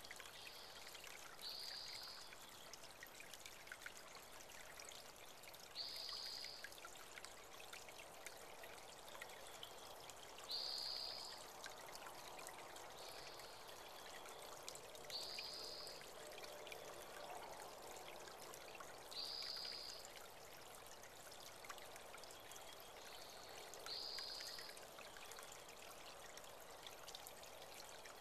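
Small spring-fed creek trickling and pouring steadily over rocks. A bird repeats a short, high note about every four to five seconds.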